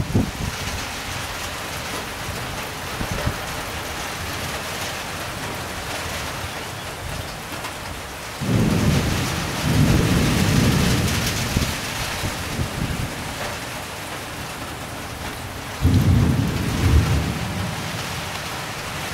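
Thunderstorm: steady rain hissing throughout, with two rolls of thunder, a long low rumble starting a little before halfway through and another that breaks in suddenly near the end.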